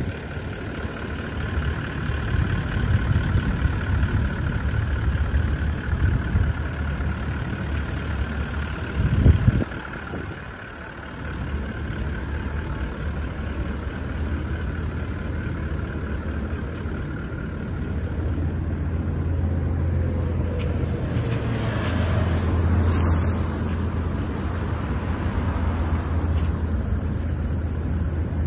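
Toyota Land Cruiser 70-series pickup's 1VD 4.5-litre V8 turbo-diesel idling steadily, with one loud thump about nine seconds in.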